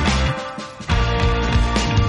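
Background music from an Indonesian song, an instrumental stretch with regular drum hits. It thins out sharply about a third of a second in, then the full band comes back in about a second in.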